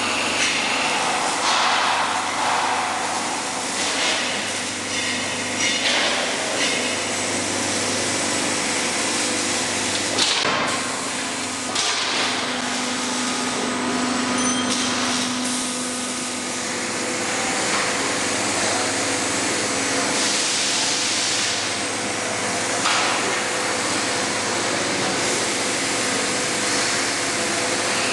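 Robotic sheet-metal bending cell running: a steady machinery hum and hiss, broken every few seconds by short hissing bursts and knocks, with a low whine for about three seconds around the middle.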